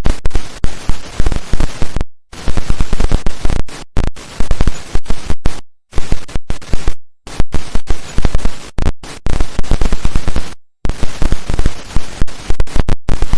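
Digital glitch sound effect: loud, rapid stuttering crackles of noise, broken up every second or two by abrupt cuts to dead silence.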